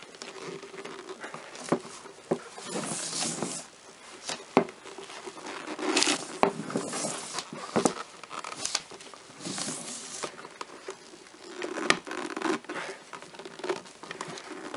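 Gloved hands pressing a replacement Corvette C5 side-mirror glass onto the mirror motor's pegs: rubbing and rustling of glove on glass and plastic, with scattered sharp clicks as the backing's clips snap partway on.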